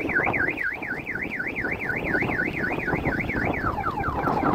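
An electronic alarm tone warbling up and down about four times a second. About three and a half seconds in it switches to a quick run of falling chirps, over a background of wind noise.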